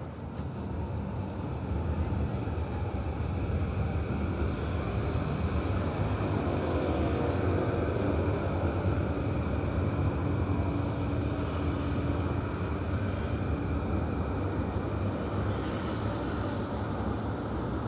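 Road traffic at a city intersection: cars driving past, a steady low rumble that builds over the first few seconds and stays strong through the middle.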